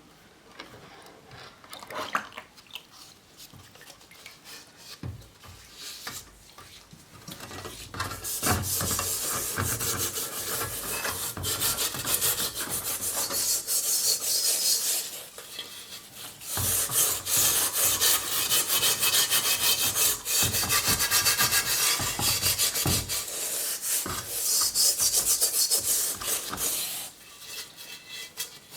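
Fast, repeated rubbing and rasping strokes on the rusty steel shell of a German M35 helmet during rust removal. After a few quieter seconds with light knocks, it comes in two long spells, the first starting about eight seconds in and a short pause coming near the middle.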